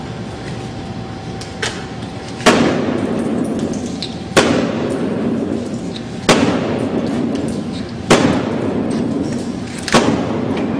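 Sledgehammer blows pounding a laminated security glass pane (Labov Level 3 one-way glass): five heavy strikes about two seconds apart, each with a short ringing, crackling tail, after a lighter knock. The pane is cracked but holding, not broken through.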